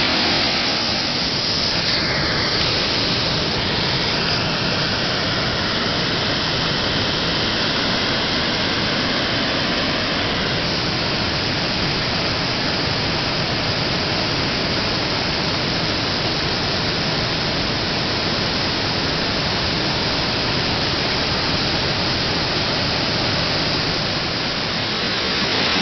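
Fast-flowing floodwater rushing, a steady loud wash of water noise.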